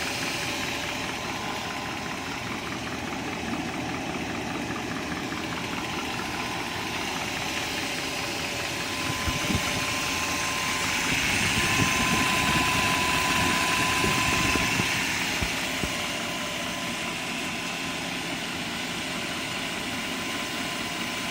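1997 BMW 540i's M62 4.4-litre V8 running, with a fast, even rattle in its sound that the owner asks about as possible timing chain rattle. It runs a little louder for a few seconds around the middle.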